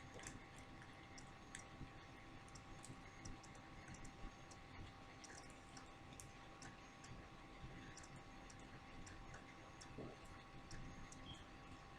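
Near silence: room tone with faint, irregular small clicks and ticks, over a faint steady hum.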